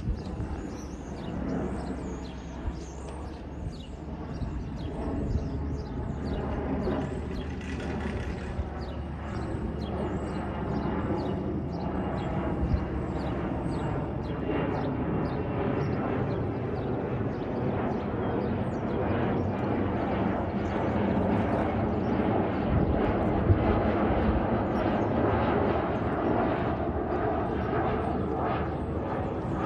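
Distant jet rumble of a Boeing 737-400's CFM56 turbofan engines as the airliner climbs and passes overhead, a steady wash that slowly grows louder.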